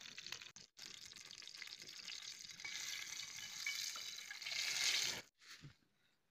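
Oil sizzling under a whole masala-coated fish frying in a flat pan, with a brief break just before a second in, growing louder and cutting off suddenly about five seconds in.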